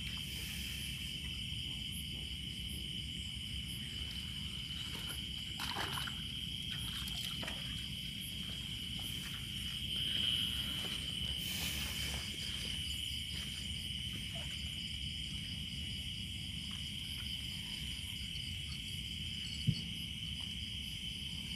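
Chorus of night insects droning, one steady high-pitched trill, over a low steady rush from the swollen, fast-flowing river. A few faint knocks of handling, and one sharp click near the end.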